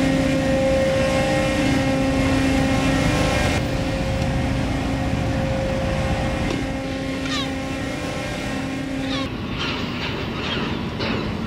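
Tugboat diesel engines running with a steady drone. About nine seconds in the drone drops away, and a few short falling chirps are heard.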